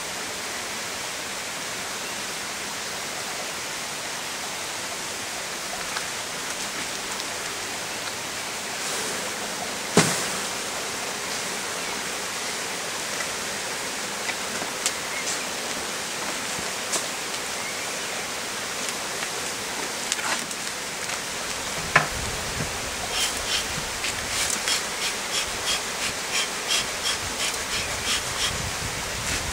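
Steady hum and hiss of honeybees around an open hive, with wooden hive frames knocking now and then, sharply about 10 s in and again about 22 s in. Near the end comes a quick run of puffs, about two or three a second, from the beekeeper's smoker bellows.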